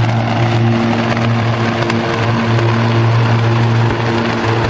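Sustained high-voltage power arc at a substation: a loud, steady, deep electrical buzz with dense crackling and sizzling, holding on without a break.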